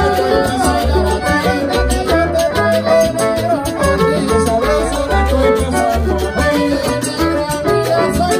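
A live salsa band playing, with a repeating bass line under dense melodic parts and steady, crisp percussion.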